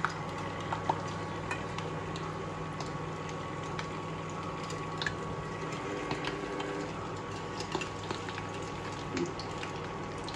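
Batter fritters of panikoorka leaves deep-frying in hot oil in a steel pan: a steady bubbling sizzle with many small crackles. A perforated steel spoon moves through the oil, with a few louder clicks, over a steady thin tone and low hum.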